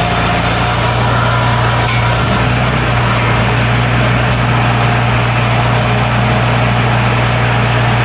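Engines of a Wood-Mizer sawmill-and-edger setup running steadily at a constant speed, with a strong low hum and a dense mechanical whir over it, while a board is fed through the edger.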